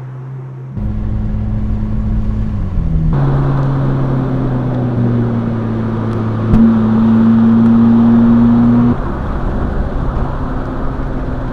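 Mercedes-AMG SL 43's turbocharged 2.0-litre four-cylinder engine running while driving, a steady engine note that shifts suddenly in pitch and loudness a few times, loudest from about two-thirds of the way through and then dropping back.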